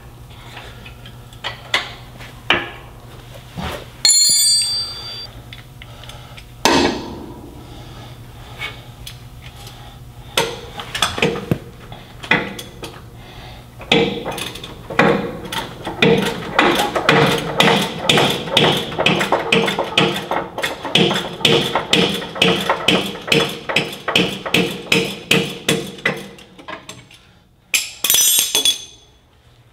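A wrench works a tight starter mounting bolt out of the truck's aluminum housing in a long run of even strokes, about two or three a second, each with the bolt grinding in its threads. The bolt is tight because of the never-seize on it, a worry for galling the aluminum threads. A ringing metal clink comes about four seconds in.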